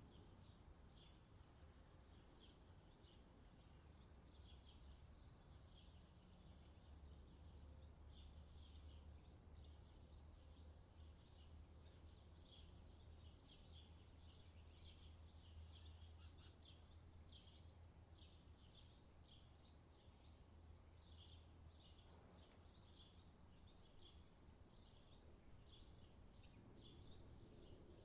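Faint chorus of birds chirping, with many short, high calls in quick, irregular succession over a low steady hum.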